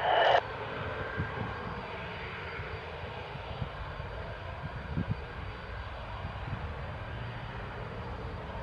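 Lockheed Martin F-35A's single Pratt & Whitney F135 turbofan as a steady rush of jet noise, the fighter starting its takeoff roll down the runway.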